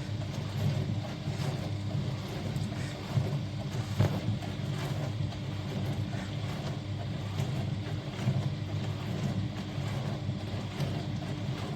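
HAVA countertop dishwasher running, its wash pump giving a steady hum with a held low tone under spraying water, with a few brief knocks.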